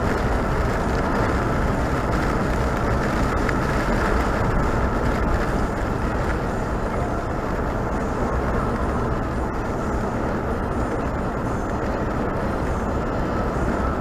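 A car driving at a steady speed: continuous road and tyre noise with the engine running underneath, unchanging throughout.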